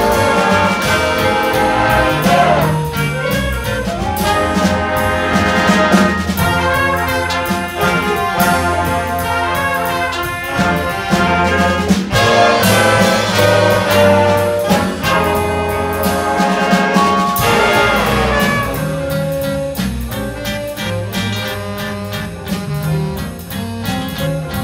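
Student jazz big band playing a swing tune, with the saxophone section and horns over piano, upright bass, guitar and drum kit. About three quarters of the way through, the horns drop back and the band plays a quieter, thinner passage.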